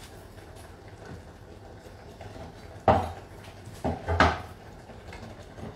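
Chef's knife chopping on a wooden cutting board: a few sharp knocks about three and four seconds in, against a quiet background.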